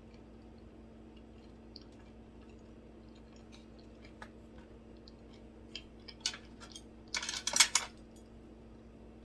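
Close-miked eating sounds: scattered faint mouth clicks, then a short cluster of louder crisp crackles and clicks about seven seconds in. A faint steady hum runs underneath.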